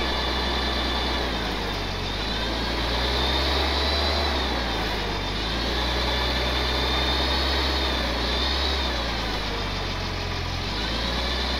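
Old forklift's engine running as it is driven and worked, its high whine rising and falling in pitch several times over a steady low hum.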